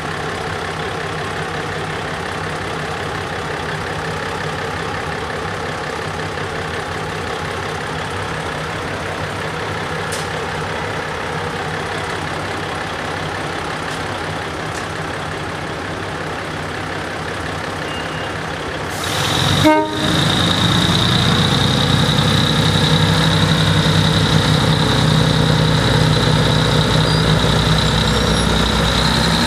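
ADK diesel multiple unit idling steadily at the platform. A little after two-thirds of the way through, a short loud horn toot sounds, then the engine opens up louder, with a steady high whine, as the train pulls away.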